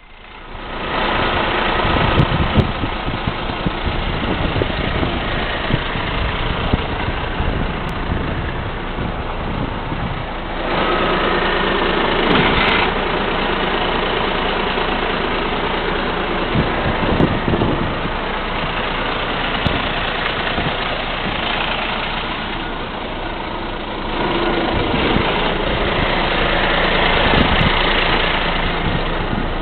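Side-loading rubbish truck's diesel engine running steadily at idle, getting louder about eleven seconds in and again later on.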